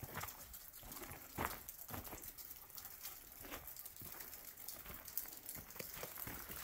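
Footsteps on a path of loose shale slabs and leaf litter, a short knock or scuff about every half second.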